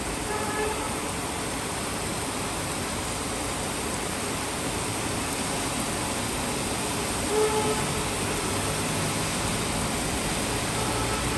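Steady rain falling over city traffic, with short vehicle horn toots, the clearest about seven seconds in, and a low engine hum from a passing vehicle near the end.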